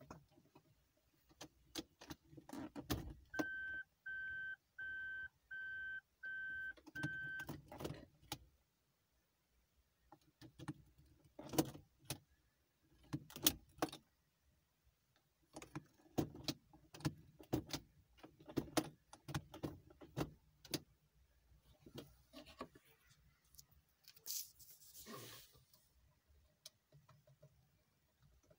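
Automatic gear selector in a 1998 Toyota RAV4 cabin being worked by hand, with repeated clicks and clunks. About three seconds in, an electronic dashboard chime beeps about seven times in quick succession over roughly four seconds. A brief rustling hiss follows near the end.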